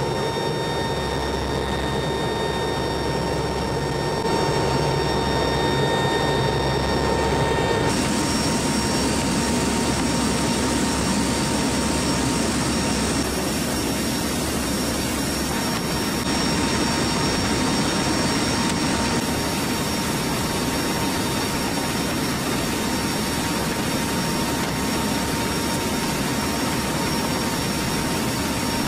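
Steady drone of the HC-130N's four turboprop engines heard from inside the aircraft, with a steady high whine over it. The drone comes from the takeoff roll at first, changes abruptly about eight seconds in, and goes on in flight.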